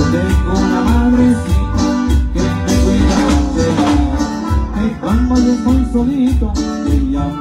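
Live band playing amplified music through PA speakers: electronic keyboards and guitar over a drum kit keeping a steady beat of about two a second.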